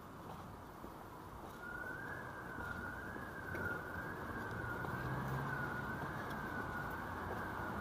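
A siren wavering smoothly up and down in pitch, a little faster than once a second, starting about a second and a half in and growing louder, over the low steady noise of city traffic.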